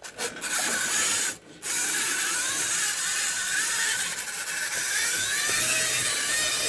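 Tyco HO-scale F unit locomotive's motor and gears running on the track with an odd mechanical noise. It cuts out briefly twice in the first second and a half, stalls that the owner puts down to poor electrical contacts.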